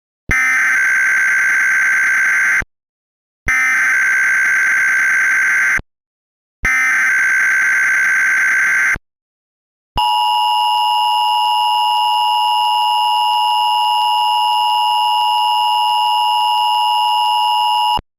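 Emergency Alert System signal: three identical bursts of SAME header data, each about two seconds long with short gaps between them. About ten seconds in, the two-tone EAS attention signal follows, two steady tones sounding together for about eight seconds. The pair marks the start of an emergency alert.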